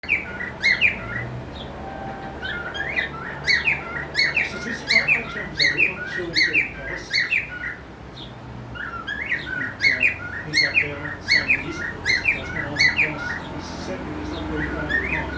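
Male cockatiel's mating call: rapid runs of short, sharp chirps and whistles, repeated for several seconds, with a pause of about a second just past the middle.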